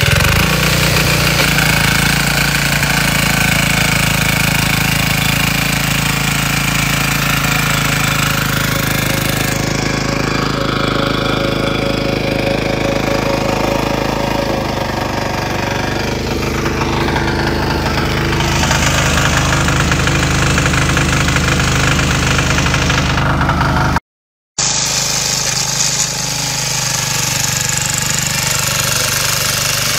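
Small single-cylinder engine of a walk-behind trenching tiller running steadily under load with a knocking beat, as the machine cuts and throws soil. The sound drops out for a moment partway through, then carries on.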